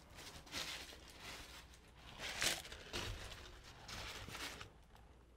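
Crumpled paper burger wrappers rustling and crinkling as they are handled and pushed aside, in a series of short bursts that stop a little before the end.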